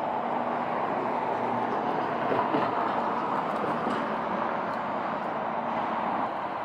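A train running past on the rails: a steady noise of wheels and running gear with a faint hum underneath.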